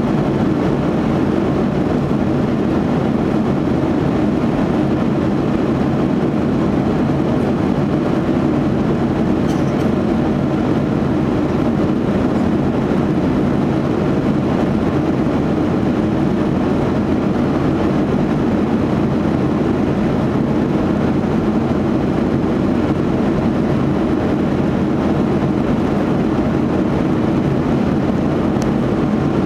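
Steady cabin noise of a Boeing 737 in cruise flight: an even, low rush of engine and airflow noise that does not change.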